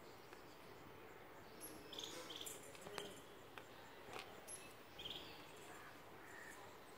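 Near silence: faint outdoor ambience with a few short, high chirps and light clicks in the middle of the stretch.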